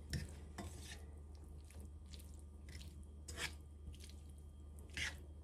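Spaghetti with shrimp tossed in a frying pan with a spaghetti server: soft wet squelching of the pasta, with scattered light scrapes and taps of the utensil on the pan. The taps are louder just after the start, at about three and a half seconds, and near the end.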